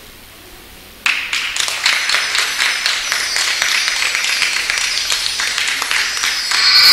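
Audience clapping, starting suddenly about a second in and going on as a dense, irregular patter of hand claps. Near the end a louder sound with steady high tones comes in over it.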